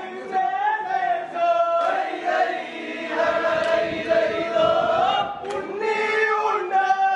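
A group of voices singing together in unison, holding and gliding between sustained notes.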